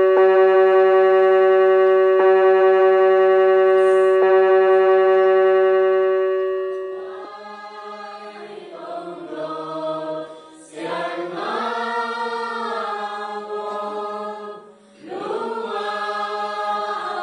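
A steady held instrumental chord that fades out about seven seconds in, followed by a congregation of voices singing a hymn together, with two brief breaks between phrases.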